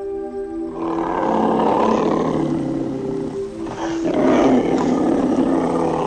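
Two long, rough animal calls, one after the other, each lasting about two and a half seconds, over background music with a simple melody.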